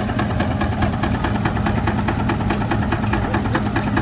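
An engine running steadily at an even speed, its firing beats coming rapid and regular.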